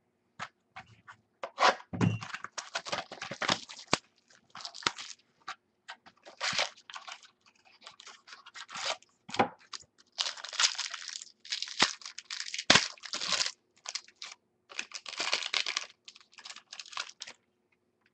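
Clear plastic wrapping on a sealed pack of baseball cards crinkling and tearing as it is pulled open by hand, in irregular bursts of rustling with a few sharp clicks.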